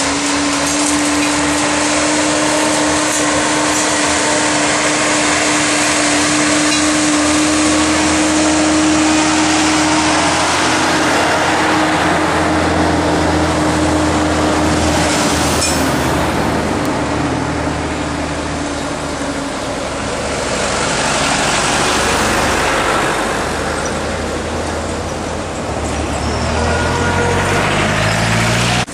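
Street traffic with vehicle engines running close by: a steady engine hum through the first half, and near the end an engine rising in pitch as a vehicle speeds up.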